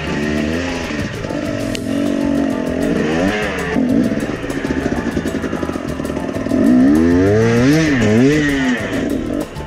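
Husqvarna TE250 enduro motorcycle engine being ridden, its revs rising and falling repeatedly with the throttle. Near the end it makes several quick, sharp climbs and drops in revs.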